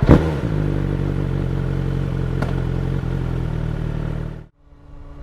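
BMW S1000R inline-four engine firing up with a brief sharp rev, then idling steadily; the sound cuts off suddenly about four and a half seconds in.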